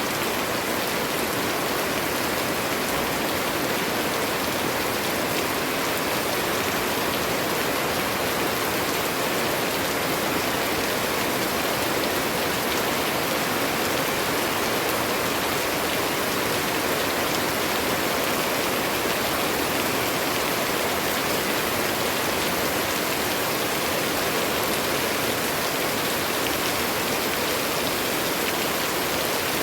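Steady rain falling, an even, unchanging hiss of many drops.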